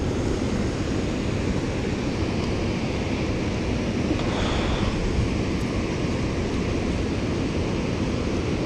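Steady rush of water pouring through the open gates of a dam spillway and churning the river below.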